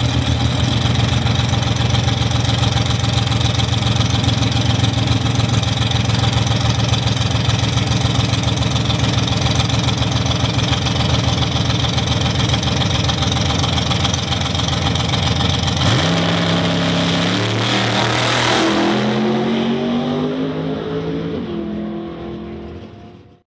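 Mustang-bodied drag race car's engine idling loudly and steadily at the starting line, then launching at full throttle about sixteen seconds in. The pitch climbs and drops back with each gear change as it pulls away down the track and fades.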